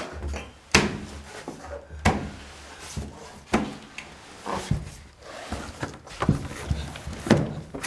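Heavy bangs on the inside wall of a truck trailer, struck about once a second with smaller knocks between, over a steady low hum.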